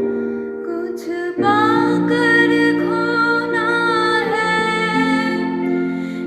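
Soft instrumental music with sustained notes; about a second and a half in, a female voice joins, singing a slow melody over the accompaniment.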